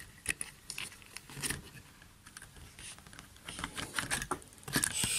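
Light, irregular clicks and scratches of a small electrolytic capacitor's wire legs and fingertips against a circuit board as the capacitor is fitted into its holes.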